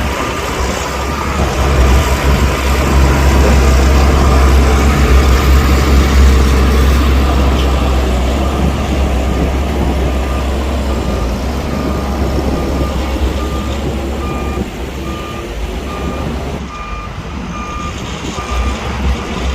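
Heavy diesel earthmoving machine running under load with a deep, steady engine rumble that eases off slightly after the first several seconds. About halfway through, a reversing alarm starts beeping evenly, a little more than once a second, as the machine backs up.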